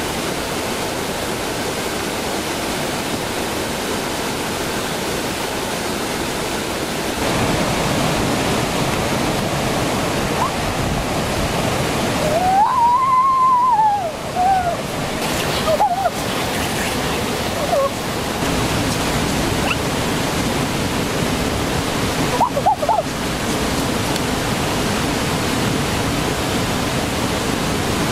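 Swollen, muddy stream rushing over rocks in a steady, loud noise that grows a little louder about a quarter of the way in. About halfway through, a short pitched call rises and then falls.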